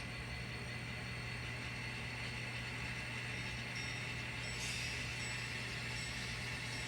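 N scale model locomotive running along the layout track: a steady, even whir of its small motor and wheels on the rails, with a constant low hum underneath.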